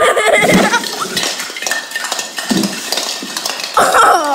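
Loud raised voices at the start and again near the end, with a rattling clatter of hard objects between them.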